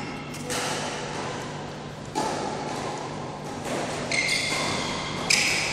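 Badminton rackets striking a shuttlecock in a rally, about four sharp hits roughly a second and a half apart, each echoing in a large hall.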